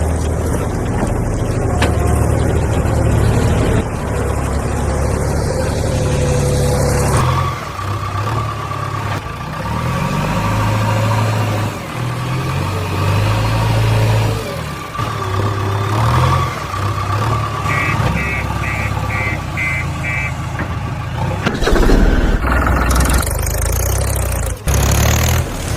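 Heavy vehicle engine sound running and shifting in pitch in steps, with an abrupt change about seven seconds in. Six short high beeps come in a row about two-thirds of the way through.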